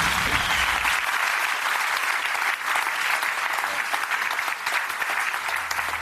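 Studio audience applauding steadily, greeting a box that has just been opened.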